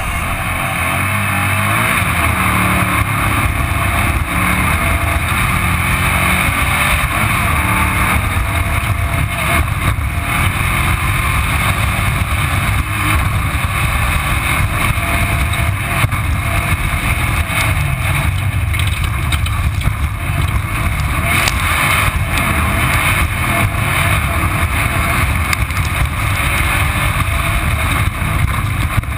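Off-road race car's engine running hard and steadily under racing load, heard through a camera mounted on the car, over a constant rush of wind and road noise with scattered knocks and rattles from the car.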